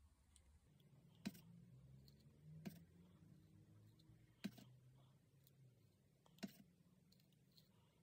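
Four faint, sharp taps of the end of a paintbrush handle dabbing dots of watercolour paint onto paper, spaced about one and a half to two seconds apart.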